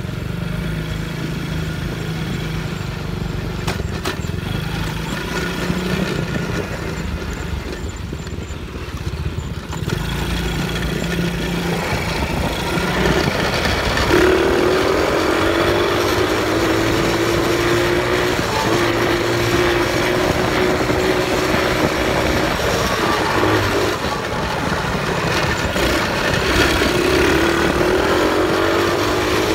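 ATV engine running: idling at first, then revving up about ten seconds in and holding a steady pitch as it is ridden, easing off and picking up again near the end.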